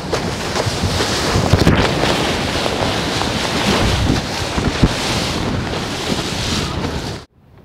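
Wind buffeting the microphone over the rush of breaking surf, a loud steady roar that cuts off suddenly near the end.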